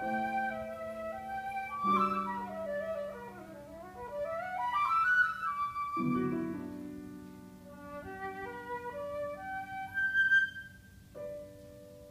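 Concert flute playing a classical solo over sustained lower accompaniment notes. The flute plays fast scale runs, down and then up, about two seconds in and again about eight seconds in, and peaks on a high held note about ten seconds in. The melody stops about a second before the end.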